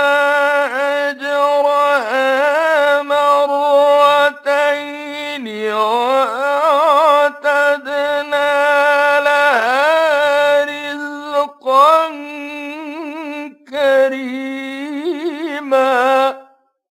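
A man's voice reciting the Qur'an in the melodic mujawwad style, drawing out long held notes with wavering, ornamented turns of pitch and a few short breaks for breath, then stopping sharply near the end.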